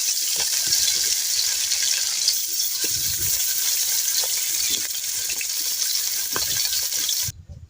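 Goat intestine pieces sizzling as they fry in a pan, with scattered clicks and knocks of stirring. The sizzle cuts off abruptly near the end.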